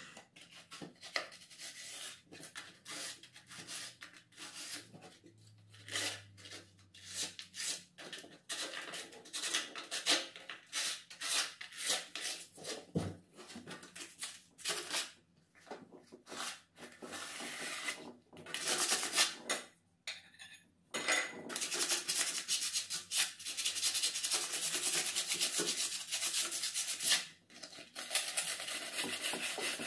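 Hand sanding of a bare wooden stair handrail frame: quick rasping strokes, in short runs at first and almost continuous for several seconds later on.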